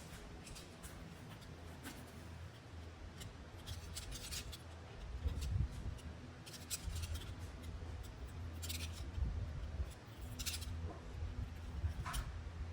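Irregular short, dry scratching strokes of hand work, one after another with uneven gaps, over a low steady hum.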